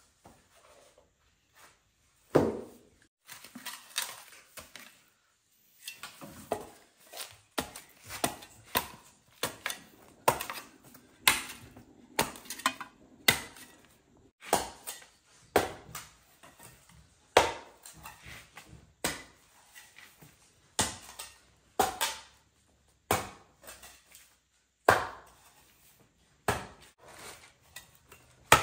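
A blade chopping again and again: sharp blows begin about two seconds in and come roughly one or two a second, with short pauses.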